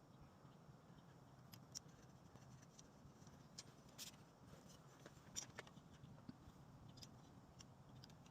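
Near silence: faint background noise with a few scattered light clicks.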